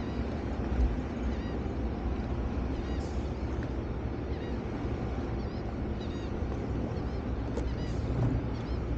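Sea-Doo FishPro jet ski engine idling with a steady low rumble, mixed with wind and water noise.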